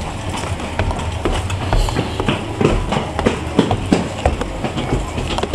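Footsteps climbing stairs with metal-edged treads: a run of short, irregular knocks, several a second, over a steady low rumble.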